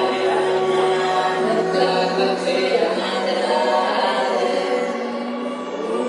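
Music: choir-like chanting voices over held synth tones, with a low tone slowly rising in pitch underneath and no heavy bass yet.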